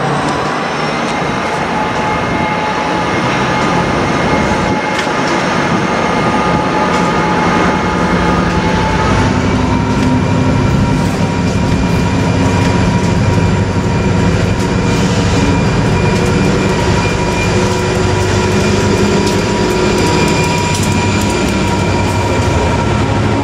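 Freightliner Class 59 diesel locomotive, with an EMD two-stroke V16 engine, running past at close range with a steady high whine over a deep engine rumble, hauling hopper wagons. The rumble grows louder from about nine seconds in, and near the end the wagon wheels start clicking over the rail joints.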